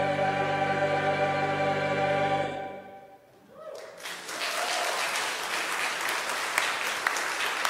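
Church choir holding the final chord of the anthem, fading out about two and a half seconds in; after a brief pause the congregation breaks into applause.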